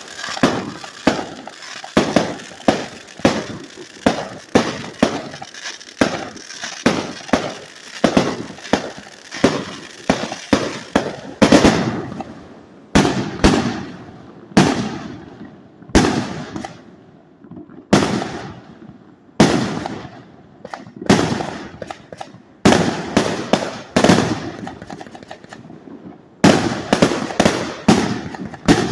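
450-shot fireworks display board firing: a long run of sharp bangs, about two a second at first, spacing out in the middle with longer tails after each bang, then coming quickly again near the end.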